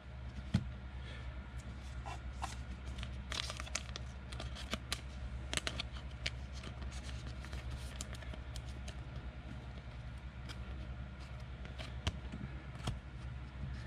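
Football trading cards being handled and slid against one another in a stack, giving scattered light clicks and scrapes, over a steady low hum.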